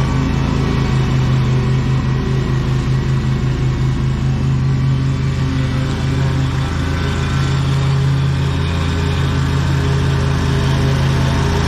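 Lawn mower engine running steadily under load while mowing.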